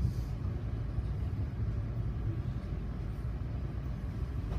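Steady low rumble of an MBTA commuter rail passenger car running on the track, heard from inside the cabin as it pulls alongside a station platform.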